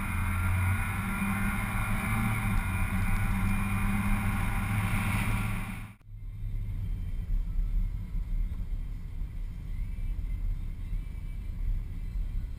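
Chevrolet vehicle driving, heard through a hood-mounted camera as a loud, steady drone of engine and wind noise. About six seconds in it cuts abruptly to the quieter low rumble of road noise inside the cabin.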